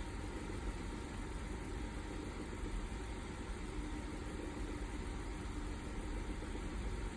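Steady background hum with a faint droning tone and no distinct events.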